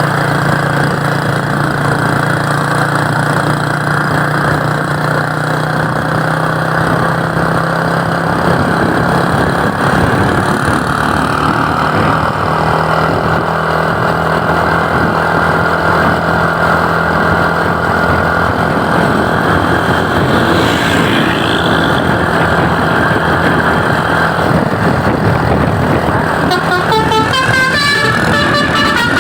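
Steady engine drone and road noise from vehicles on the move. About three seconds before the end, a bus's basuri telolet horn starts playing a quick run of changing musical notes.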